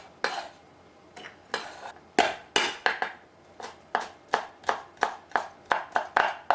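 Kitchen knife chopping on a cutting board, mincing garlic and ginger: about sixteen sharp strokes, uneven at first and then steadier at about three a second.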